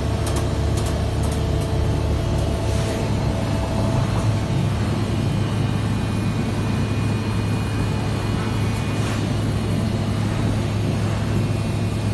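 Industrial tunnel washer (continuous batch washer) and its loading hopper machinery running with a steady low hum, with a few sharp clicks in the first second or so.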